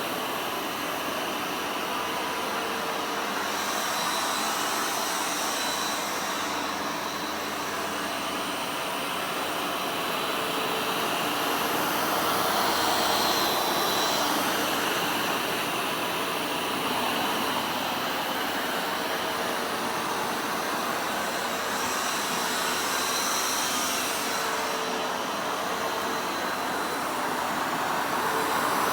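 Vacuum cleaner running continuously, a steady whirring motor with slow, slight swells in level.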